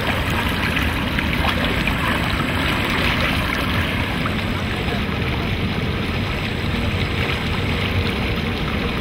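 River water rushing and splashing steadily along the side of a moving boat and around plastic bottles held in the current, over a steady low rumble.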